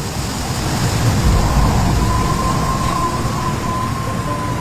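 Heavy rain storm noise: a loud, steady rushing with low rumbling, and a faint steady tone that comes in about a second in.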